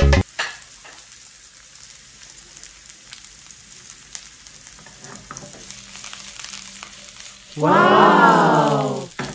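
Red onions and garlic sizzling in hot oil in a nonstick wok, a soft steady crackle. About three quarters of the way through, as the wok is lifted and tossed, a loud pitched sound rises and falls in pitch for about a second and a half.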